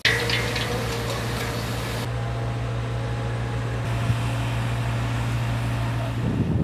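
An engine running steadily at a constant speed, a low hum with an even throb beneath it. Near the end it gives way to scattered knocks.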